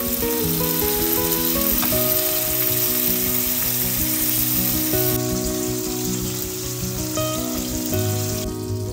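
Tomato and paprika sauce sizzling in a hot frying pan as chicken broth is poured in, the sizzle easing about halfway through and again near the end as the liquid cools the pan. Soft background music with held notes plays underneath.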